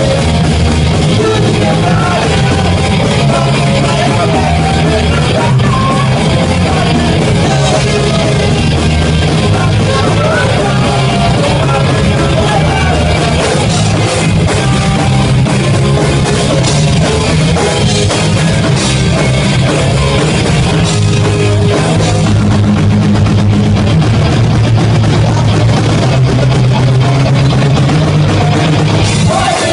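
Live rock band playing loud and unbroken: electric guitars, bass and drum kit.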